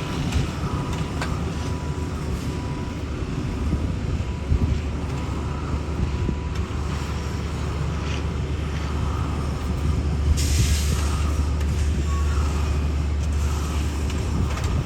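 Heavy diesel paving equipment running with a low rumble that grows stronger a few seconds in. A short burst of hissing air comes about ten seconds in.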